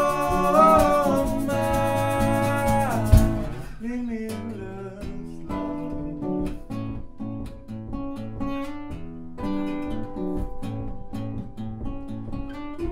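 Band's song: a sung note held for about three seconds, ending on a loud hit. Then comes an instrumental break of guitar chords, plucked and strummed.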